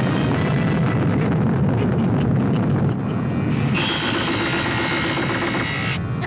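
Cartoon storm effect, a loud rushing, rumbling noise of wind and rain, under an orchestral score whose sustained chords swell about four seconds in.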